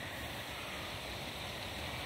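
Steady outdoor background noise: an even hiss with an irregular low rumble underneath, and no distinct calls or knocks.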